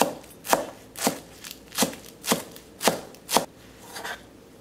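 Chef's knife chopping culantro (sawtooth coriander) on a plastic cutting board: sharp knocks of the blade on the board, about two a second, eight or so in all, stopping about four seconds in.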